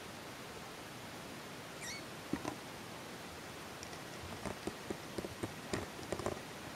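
A young Himalayan kitten's tiny high squeak about two seconds in, over a faint hiss and scattered soft taps and rustles that cluster in the second half.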